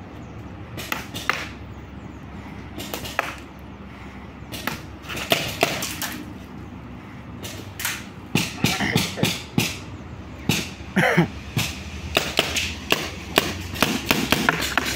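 Paintball fire: sharp pops and smacks, a few scattered ones at first, then many in quick succession through the second half.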